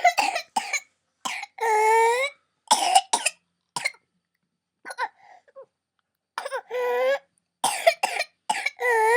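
A 22-month-old toddler with whooping cough (pertussis) in a coughing fit: runs of short, rapid coughs, broken by long pitched whoops about a second and a half in, about six and a half seconds in and again near the end. There is a brief lull in the middle.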